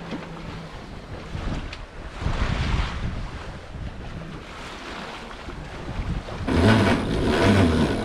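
Wind buffeting the microphone over sea noise aboard a sailing yacht, swelling about two seconds in and loudest from about six and a half seconds in.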